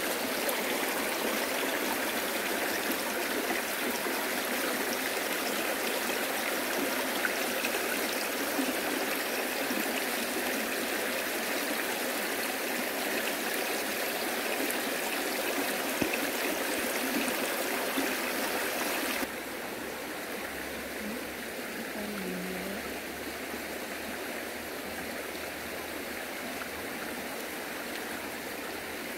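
Steady rush of flowing water, like a small stream or runoff. About two-thirds of the way in it becomes quieter and duller.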